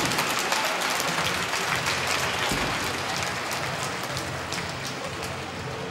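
Audience applauding in an indoor riding hall, a dense patter of clapping that slowly dies down.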